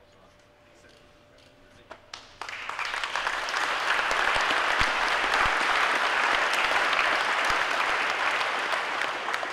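Crowd applause: after a quiet start and a few scattered claps, the audience breaks into full, steady clapping about two and a half seconds in, easing off slightly near the end.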